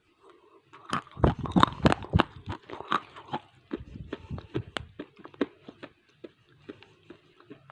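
Biting and chewing a piece of roasted gray edible clay: a dense run of crisp crunches starting about a second in, thinning to sparse, softer clicks after about five seconds. The clay has gone soft from the weather, so it gives little crunch.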